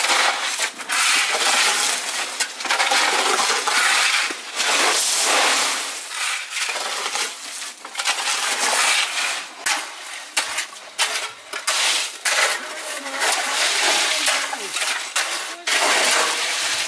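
Gravel and wet concrete mix scraping and crunching, with many short irregular clatters and no steady engine tone.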